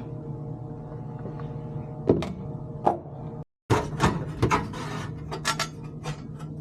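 Scattered clicks and knocks of metal panels and parts being handled as a commercial refrigerated prep cooler is taken apart. There are two sharp knocks, then a busier run of clatter after a brief break, over a steady hum.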